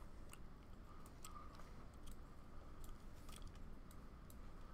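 Faint, irregular clicks from computer input during 3D-modelling work, about a dozen over a few seconds, over a faint steady background hum.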